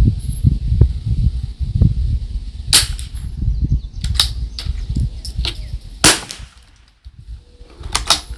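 .22 LR rifle shots: two sharp cracks about three seconds apart, each followed a little later by lighter, sharper clicks, over a low, uneven rumble of wind on the microphone.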